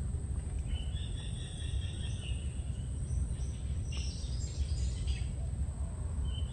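Outdoor ambience: a steady low rumble under a constant high insect whine, with birds chirping about a second in and again around four to five seconds in.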